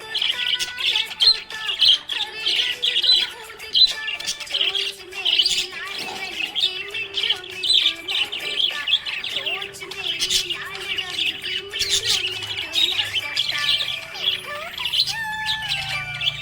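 Budgerigars chirping and warbling continuously in quick, overlapping high chirps, over steady background music.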